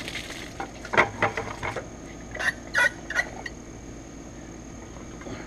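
Fowl calling in short bursts, a quick cluster about a second in and a few more calls between two and a half and three seconds in.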